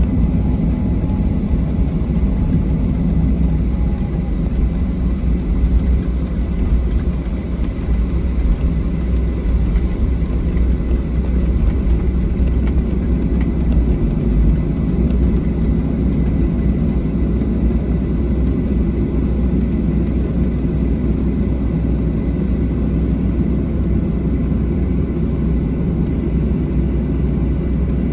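Steady cabin noise inside a Boeing 737-700, a continuous low rumble of its CFM56-7B jet engines with a faint thin whine above it.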